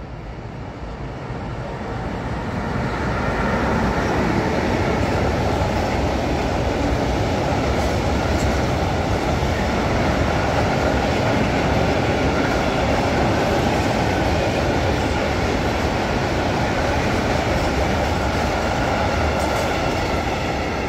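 Long freight train of open goods wagons rolling past, its rumble and wheel noise building over the first few seconds as it comes near, then holding loud and steady as the wagons go by.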